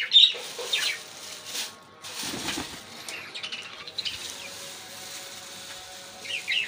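Birds chirping in short high calls, a few near the start and again near the end, with the rustle of a plastic bag being handled as grain seed is shaken out of it.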